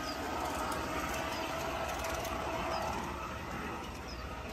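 Large-scale garden model train rolling along its track, with a faint steady motor whine that fades about three seconds in and light clicking of wheels over the rails.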